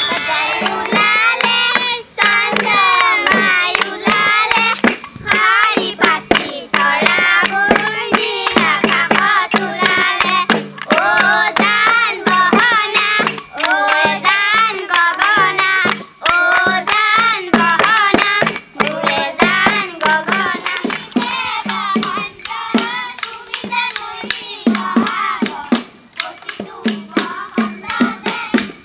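Children singing a Bihu folk song to a steady rhythm of hand-clapping.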